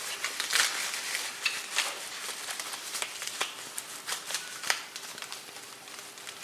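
Rustling of packaging with scattered light clicks and knocks as the parts of a soldering iron stand are unpacked and handled.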